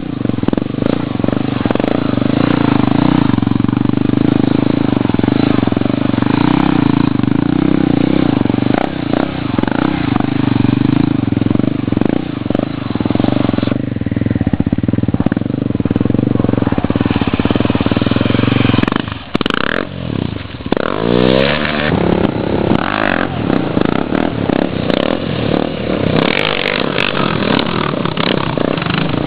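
Motorcycle engine running at a steady speed, then dropping off briefly about two-thirds of the way in and revving back up with a rising pitch, followed by uneven on-and-off throttle.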